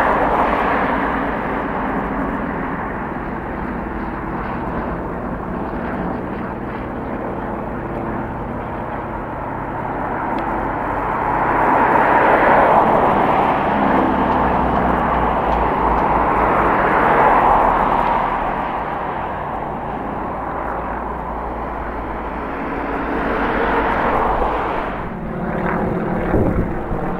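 Radial piston engines of Yak-52 and Yak-54 aerobatic aircraft droning overhead, swelling and fading with rising and falling pitch as the planes manoeuvre; loudest around the middle.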